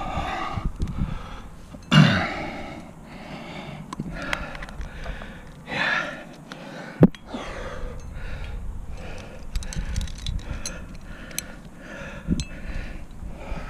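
A lead climber's hard, rapid breathing close to the microphone while placing protection high on a strenuous crack, with a louder exhale about two seconds in. Light clicks throughout and one sharp click about seven seconds in.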